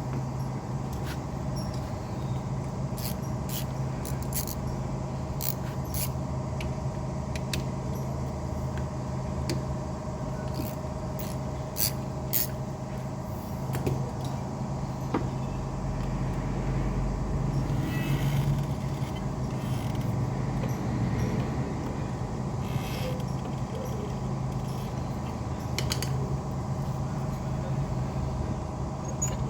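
A steady low mechanical hum runs throughout, with sharp clicks and clinks of hand tools and metal brake parts being handled scattered through it, most of them in the first half.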